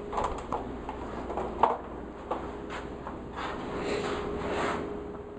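Handheld camera handling noise: light rubbing and a few soft knocks over a faint steady hum.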